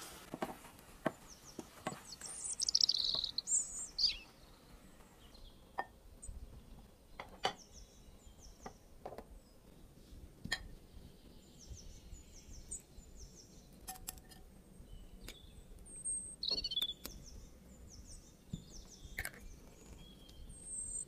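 Small birds chirping. A high call sweeps down about two and a half seconds in, and runs of short repeated high chirps come later. Scattered light clicks and knocks sound between them.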